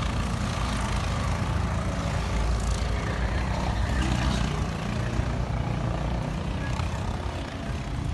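Steady low rumble of a road vehicle running.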